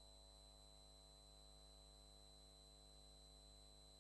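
Near silence: the soundtrack drops out, leaving only a faint steady hum.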